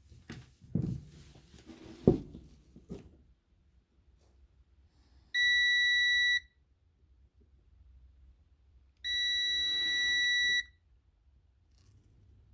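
Digital multimeter's continuity beeper sounding twice: a steady high beep of about a second, then a longer one of about a second and a half, signalling a closed circuit as the probes test the laser's hair-fine wires. A few light knocks from handling the probes come in the first three seconds.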